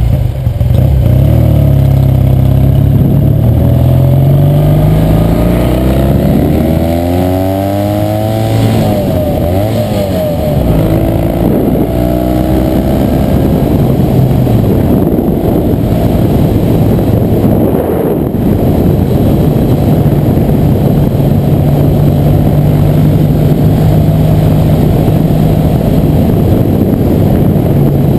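1966 Triumph TR6R Trophy's 650cc vertical-twin engine pulling away from a stop. Its pitch rises several times as it shifts up through the gears, then it settles into a steady note at cruising speed with wind rush on the microphone.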